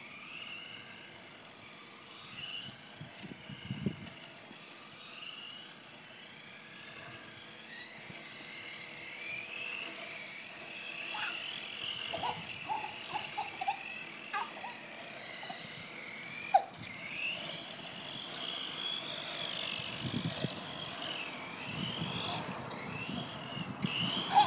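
Toy radio-controlled car's small electric motor whining, the pitch wavering up and down as it speeds up and slows, with scattered clicks and knocks.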